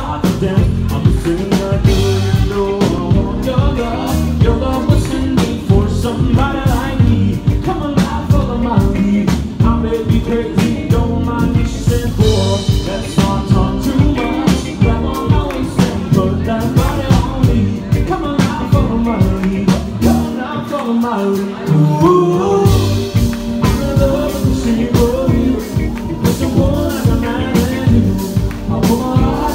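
Live band music with a man and a woman singing over electric guitar and drum kit. About two-thirds of the way through, the bass and drums drop out for roughly two seconds, then the full band comes back in.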